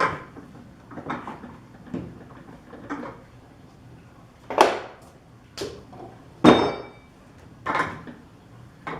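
A string of irregular knocks and clanks, roughly one a second, from metal parts and tools being handled and adjusted on a drill press setup. The loudest knock comes about two-thirds of the way in and rings briefly.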